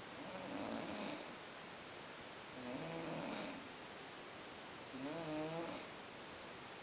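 A sleeper snoring: three snores about two and a half seconds apart, the second and third with a wavering pitch.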